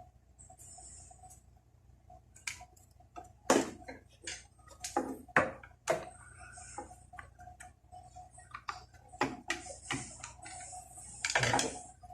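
Irregular clicks, knocks and short scrapes of hands and a tool working on an electric kettle's plastic housing as it is opened up for repair.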